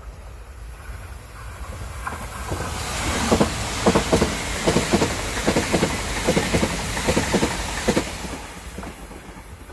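ITX-Saemaeul electric multiple-unit train passing close by at speed. A rising rush of wheel and air noise carries paired clacks of the wheels over rail joints, roughly one pair every three-quarters of a second, then fades as the last cars go by.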